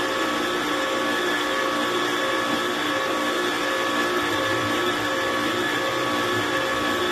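Pressure washer running steadily while a foam cannon on its lance sprays snow foam onto a car: an even motor whine over the hiss of the spray.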